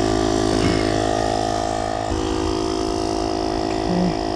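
Air compressor running steadily, inflating a tire toward 60 psi before its automatic shut-off. Its tone shifts slightly about two seconds in.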